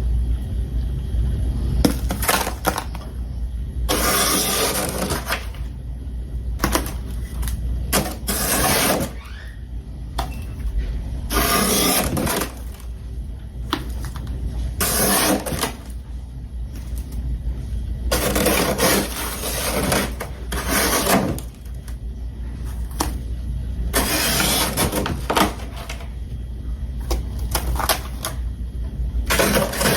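Close-up crunching and chewing of freezer frost, in separate bites of about a second each every few seconds, over a steady low hum.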